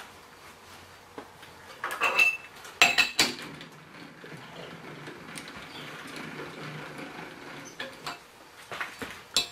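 Metal clanking and clinking as a lathe's three-jaw chuck is worked with a steel chuck key: a cluster of sharp, ringing clanks about two to three seconds in, then a few lighter clicks near the end.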